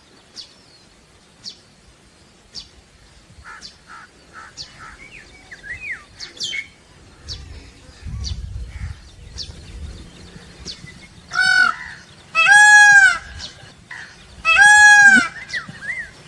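Peacock calling: three loud, arching calls in quick succession from about eleven seconds in, each under a second long. Before them come faint, scattered chirps of small birds.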